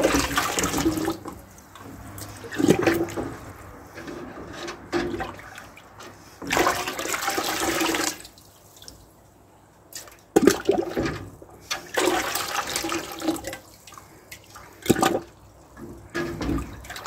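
Runny calcium carbonate slurry sloshing and splashing in a metal pail as crucibles are dunked and swirled in it by hand, in repeated bursts, the longest about six and a half seconds in.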